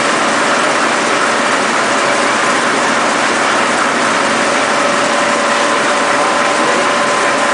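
Four-colour rotogravure printing machine running steadily: a constant mechanical rush with a faint steady whine over it, as the printed film web runs over its rollers.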